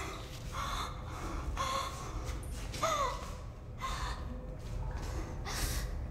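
A person gasping for breath in short, heavy pulls about once a second, with a brief wavering moan about halfway through, over a steady low hum.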